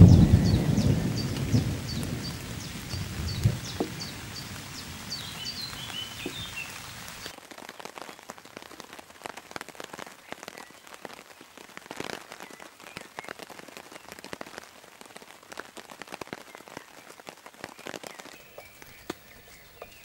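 A thunderclap rumbles at the start and dies away over about four seconds over steady rain, while a bird repeats a short high chirp about twice a second. About seven seconds in the sound changes to rain dripping and pattering in dense, irregular taps on the tarp overhead.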